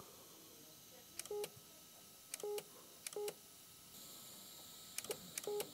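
Electrosurgical generator beeping as the endoscopic knife is activated: about five short tones, each a fraction of a second long, as the knife is fired in brief bursts to cut a submucosal vessel branch.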